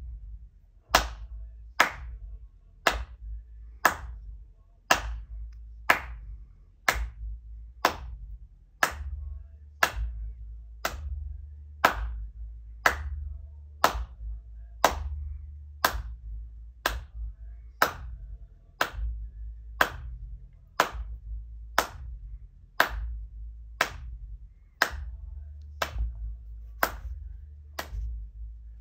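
A person clapping hands at a steady, even beat, about one clap a second, played in time to a track in headphones as a recorded handclap percussion part.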